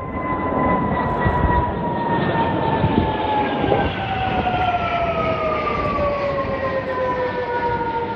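Airbus A330 MRTT tanker's twin jet engines passing low overhead: a loud rumble with a high whine that falls steadily in pitch as the aircraft goes by.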